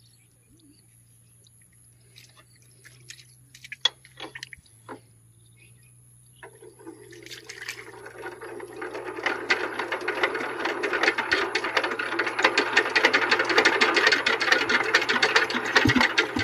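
A few faint clicks, then about six seconds in the power tiller's single-cylinder diesel engine is turned over and clatters rapidly, growing louder as it spins up. It is struggling to start, which the owner puts down to water getting into the fuel tank.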